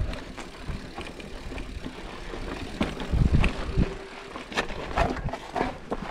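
Giant Reign 29 mountain bike riding rough dirt singletrack: wind rumble on the camera microphone with rattling clicks and knocks from the bike over the trail. The heaviest rumble comes about three seconds in, followed by a brief squeak.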